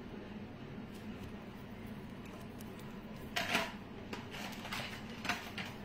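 Metal pendant jewellery being handled and set down: a few short clinks and rustles starting about three seconds in, over a low steady hum.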